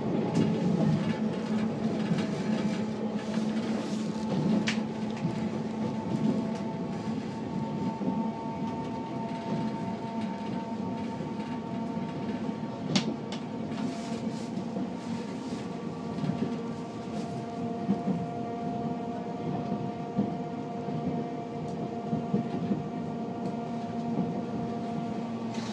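A streetcar running, heard from inside the car: a steady rumble of wheels and motor with a whine of several steady tones that shift in pitch about halfway through, and a few sharp clicks.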